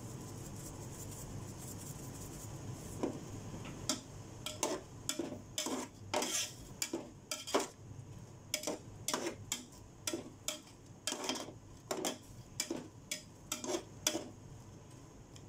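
Slotted spoon stirring shrimp in a large aluminium pot, knocking and scraping against the pot's side about twice a second, starting a few seconds in.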